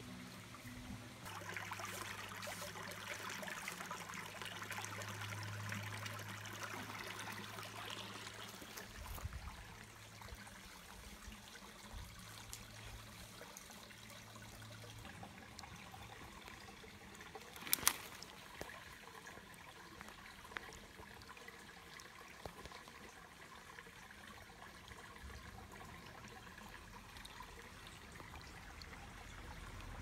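Faint trickle of shallow creek water running over stones, louder in the first third. A low steady hum is heard through the first half, and a single sharp click a little past the middle.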